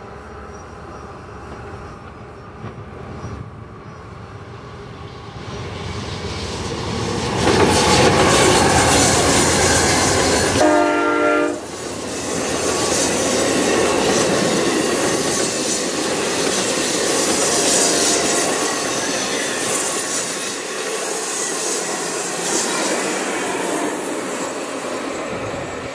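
Amtrak passenger train approaching and passing close by, growing louder as the locomotive nears. The locomotive's horn gives one short blast about ten seconds in. The double-deck Superliner cars then roll past on the rails.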